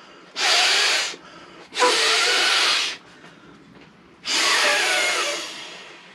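An inflatable camping pillow being blown up by mouth: three long breaths forced through its valve, the last one longer and trailing off. The owner thinks the valve is faulty.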